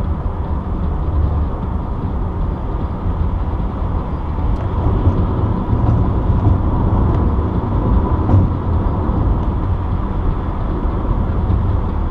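Steady road noise of a car driving on a highway: a continuous low rumble of tyres and engine.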